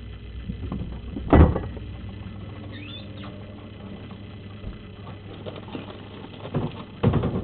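Two short, loud knocks, one about a second in and one near the end, with a few fainter knocks between. Under them is a low steady hum that fades out about two seconds in.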